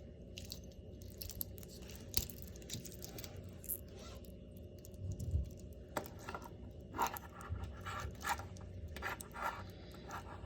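Hands handling a wristwatch and its packaging during an unboxing: irregular scrapes, crinkles and small clicks, busiest in the second half, over a steady low hum.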